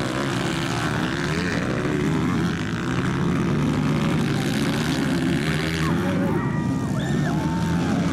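Several 230cc dirt bike engines racing, loud and continuous, their revs rising and falling as the riders accelerate and back off.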